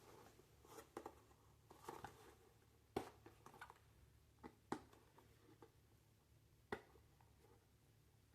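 Faint, scattered clicks and taps of hands working at a toy construction set's box, trying to get it open; the sharpest click comes about three seconds in.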